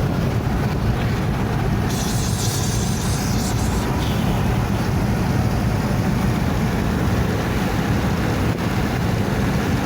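Steady low rumble of a car driving, heard from inside the cabin, with a brief high hiss about two seconds in.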